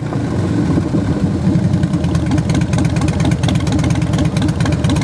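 2005 Harley-Davidson Heritage Softail Classic's Twin Cam 88B V-twin idling through Vance & Hines Big Shots Staggered exhaust pipes, with a loud, uneven, loping beat.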